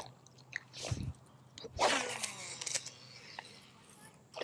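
A wooden twitch bait being jerked and retrieved: a few soft splashes and swishes, the loudest about two seconds in, with small clicks in between.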